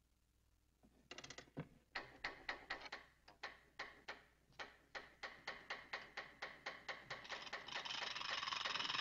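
Clockwork mechanism ticking, its sharp clicks coming faster and faster until they blur into a steady whirr near the end, as if winding up to set the mechanical band going.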